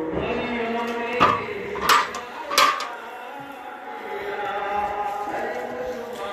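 Large metal cooking pots clanking, three sharp ringing knocks in quick succession about a second in.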